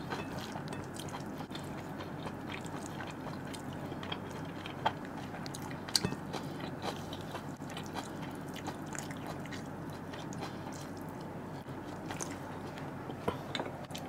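A person chewing a mouthful of rice and chicken, with wet mouth sounds and scattered small clicks and smacks.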